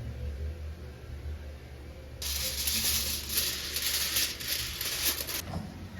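A loud, steady hiss that starts suddenly about two seconds in and cuts off about three seconds later, over a low hum.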